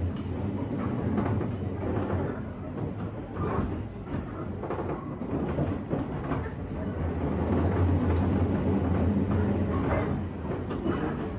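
Running sound heard inside a JR West 201 series electric train's motor car: a steady low motor and wheel rumble that swells for a few seconds near the end, with the clack of wheels over rail joints.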